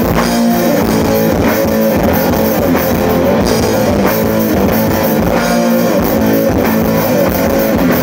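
Live rock band playing an instrumental passage between vocal lines: electric guitars, bass guitar and drum kit, loud and steady.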